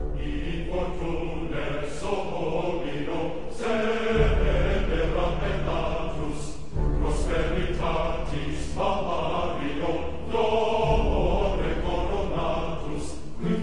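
Background music of choral chanting over a low sustained drone, sung in phrases a couple of seconds long.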